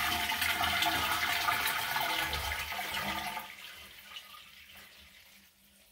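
Push-button dual-flush toilet cistern flushing: water rushing into the bowl, dying away over the last couple of seconds. The water supply is shut off, so the cistern empties without refilling.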